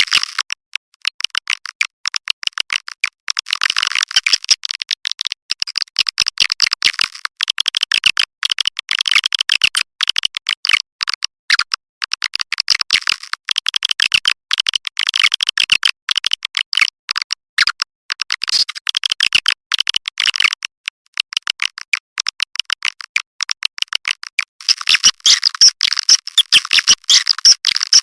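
Swiftlet lure track: a dense flock of edible-nest swiftlets twittering and clicking in rapid, high-pitched chirps, with no low end, growing louder for the last few seconds.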